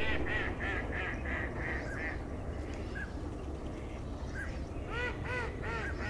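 A flock of waterfowl calling: a quick run of about seven short calls in the first two seconds, a couple of single calls, then another run of calls near the end.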